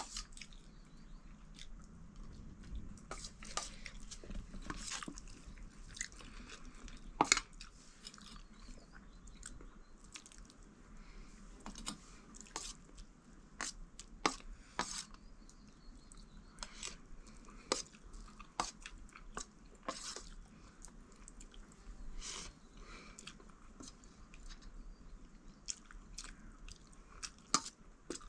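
People eating a meal of rice and curry: irregular chewing, crunching and small mouth clicks, the sharpest about seven seconds in and again near the end.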